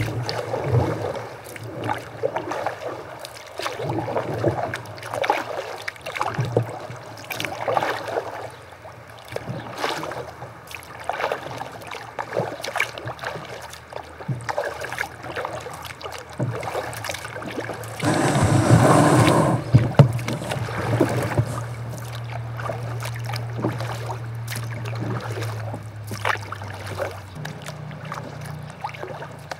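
A kayak being paddled, with irregular paddle strokes splashing and dripping in calm river water. Past halfway comes a louder rushing noise lasting about two seconds.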